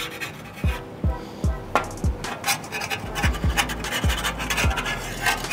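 Metal spatula scraping and rubbing across the steel top of a Blackstone griddle in short strokes, over background music with a deep, regular beat.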